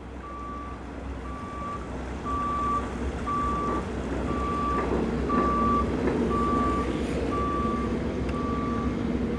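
Flatbed tow truck's backup alarm beeping steadily, about one beep a second, with the truck's engine running underneath.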